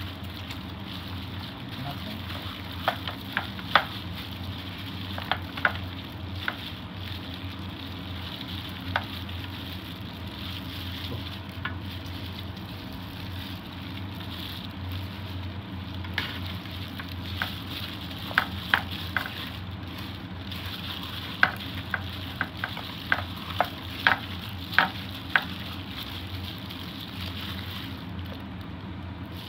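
Kimchi being mixed and stirred with chili paste in a metal pot: a steady wet, crackly rustle with scattered sharp clicks and taps, in a cluster a few seconds in and a longer run from about halfway, over a steady low hum.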